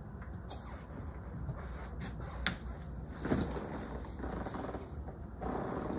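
Handling noises as a person walks over and sits down in a leather armchair with a booklet and papers: scattered clicks and rustles, a sharp click about two and a half seconds in and louder rustling bursts later.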